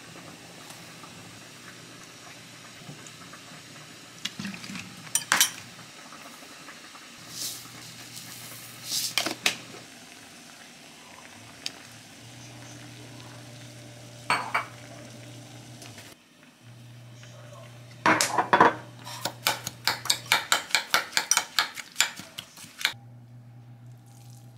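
Cooking and kitchenware sounds: metal utensils clinking and scraping against pans and dishes. Scattered single clinks, then a fast run of sharp taps, several a second, late on.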